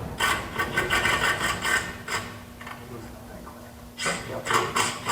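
Quick rasping strokes, about four a second, of the old steel exhaust pipe being cut by hand. Two runs of strokes with a pause of about two seconds between them.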